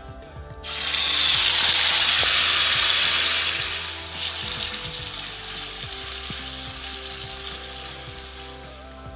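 Marinated chicken pieces dropped into hot oil in a wok, setting off a sudden loud sizzle. The sizzle eases after about three seconds and fades slowly as the chicken is stirred.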